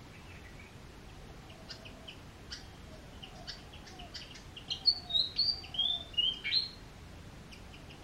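Small songbird calling: scattered short high chirps, then about five seconds in a loud two-second run of clear whistled notes stepping down in pitch. A faint low call repeats in the background.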